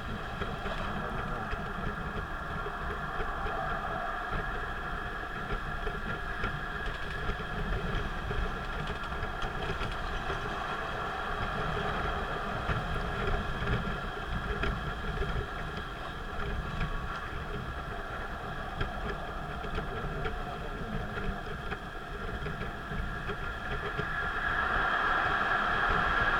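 Car driving at expressway speed, heard from inside: steady low rumble of road and engine noise with a hiss, growing louder near the end.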